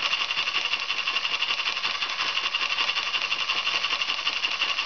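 1975 Bio Fiz Polish school model steam engine running steadily on steam at about 1 bar, a rapid, even mechanical clatter.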